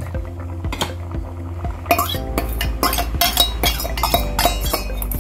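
Metal utensils clinking and knocking against a steel bowl and an aluminium cooking pot, with sharp clinks that come quicker and closer together from about two seconds in.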